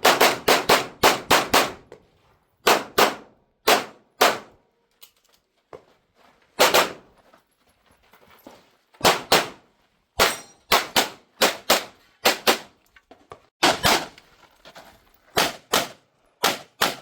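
Pistol gunfire on a practical-shooting stage: quick strings and pairs of shots with short pauses between groups while the shooter moves or reloads. A few fainter shots or hits sound in the gaps.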